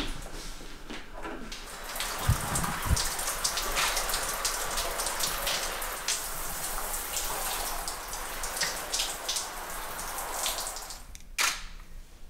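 Handheld shower head spraying water onto a clothed person and her hair: a steady hiss of spray with scattered drip and splash clicks. It starts about two seconds in and cuts off suddenly near the end with a sharp click.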